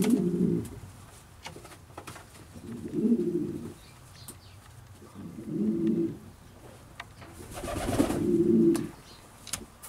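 Hungarian Giant House pigeon cooing: four low coos about two and a half seconds apart, the last one longer. Faint clicks come between them.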